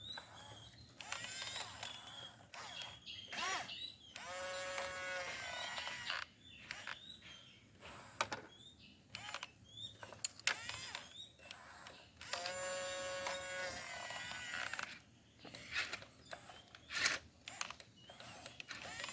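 Small electric motor of an RC construction machine whining in two runs of about two seconds each, about four seconds in and again near twelve seconds, rising in pitch as it starts and dropping as it stops. Scattered clicks and rattles come between the runs.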